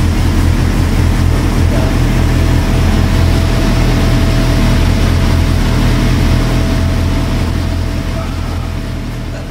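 Suzuki Hayabusa inline-four motorcycle engine in a race car idling steadily, growing a little quieter near the end.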